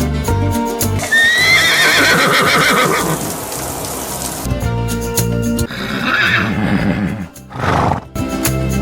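Horse whinnying over background music with a steady beat: one long, wavering whinny about a second in, then shorter calls near the end.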